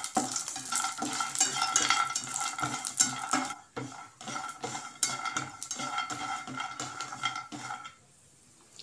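A slotted spatula scrapes and taps around a nonstick frying pan, stirring almonds as they roast in ghee. The steady run of clicks and scrapes stops about eight seconds in.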